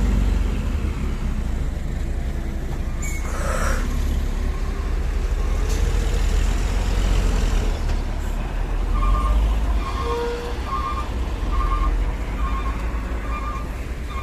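Heavy dump truck's diesel engine running with a deep steady rumble. A short hiss of air comes about three and a half seconds in, and from about nine seconds in a reversing alarm beeps a little more than once a second.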